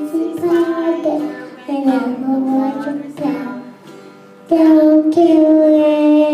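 A child singing a song in long held notes, with a louder sustained note starting a little past halfway.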